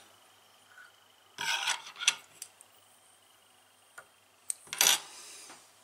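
Two short scratchy rubbing sounds, about one and a half and five seconds in, from fingers working tying thread on a fly hook held in a vise while the thread is secured. The first ends in a sharp click.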